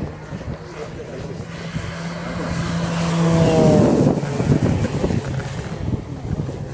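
Large electric Extra 330 aerobatic model airplane with a variable-pitch propeller making a low pass. The steady propeller-and-motor hum grows louder, peaks about three and a half seconds in, then drops in pitch as the plane goes by.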